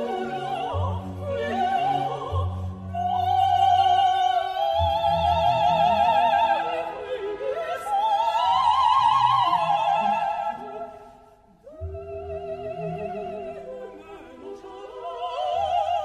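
Background music: operatic singing in a high voice with strong vibrato on long held notes, over orchestral accompaniment, breaking off briefly about two-thirds of the way through before the next phrase.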